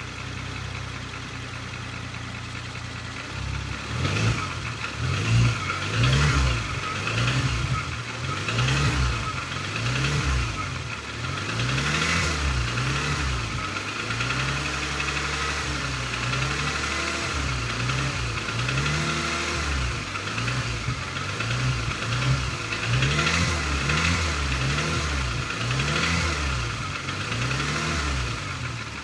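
Porsche Macan S V6 engine idling steadily, then blipped up and down repeatedly from about three seconds in. It carries a knocking noise that gives the impression of a bad connecting rod, which is said to be even worse when cold.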